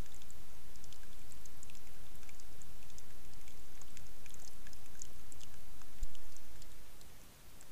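Water trickling and dripping at a beaver dam: a steady low rush with scattered small clicks and drips. About six seconds in the sound jumps louder, then fades and dips briefly.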